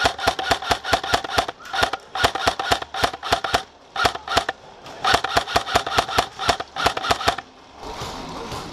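Magpul PTS Masada CQB electric airsoft rifle (AEG) fired in rapid single shots, about four or five a second, in several strings with short pauses. The firing stops about three-quarters of the way through.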